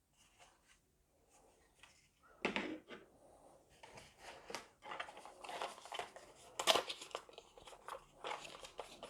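Packaging rustling and crinkling in irregular bursts as small accessories are unwrapped, starting about two seconds in, with a few sharper crackles.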